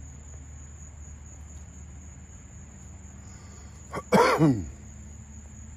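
A short, loud vocal sound close to the microphone about four seconds in, falling in pitch, like a cough or throat-clearing, over a steady high drone of crickets.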